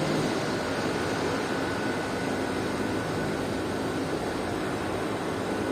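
Steady drone of machinery running, with a faint, steady high-pitched whine over it.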